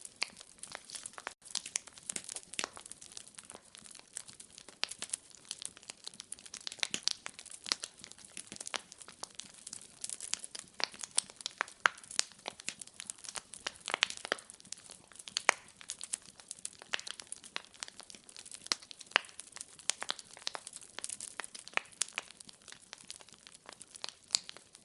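Wood fire crackling in a fireplace: irregular sharp pops and snaps over a faint hiss.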